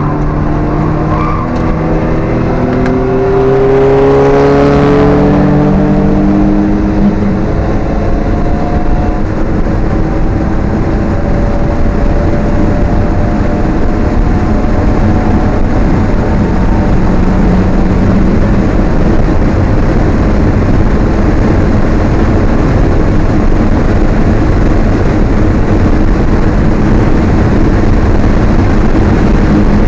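Alfa Romeo 1750's twin-cam four-cylinder engine heard from inside the car under hard acceleration, its revs climbing over the first five seconds or so. It then pulls on at high revs, the engine note rising slowly under heavy wind and road noise.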